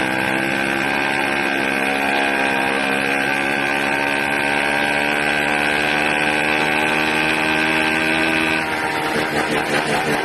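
80cc engine running steadily with a high-pitched whine over its exhaust note; near the end the whine stops and the engine note turns rough and pulsing. The owner takes the loud, erratic running for an air leak at the carburetor's intake manifold.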